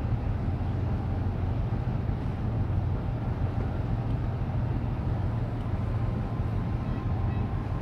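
Steady low engine rumble from a large container ship under way, with no change in level.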